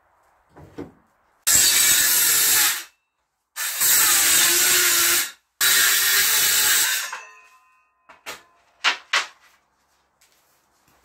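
Handheld circular saw cutting through wooden battens in three runs of a second or two each, the blade winding down after the last. Then a few sharp knocks.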